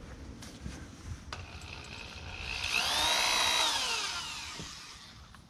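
Corded power drill spinning up with a quickly rising whine, running steadily for about a second and a half, then winding down, as it drives a fastener into a metal gate-latch bracket on a wooden post. A couple of light clicks come before it.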